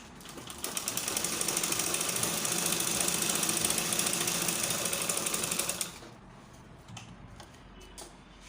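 Sewing machine stitching an invisible zipper, a fast, even needle clatter that runs for about five seconds and then stops. A couple of faint clicks follow.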